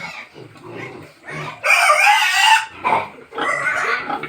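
Pigs grunting in short low bursts, with two loud, shrill squeals: a long one about a second in and a shorter one near the end.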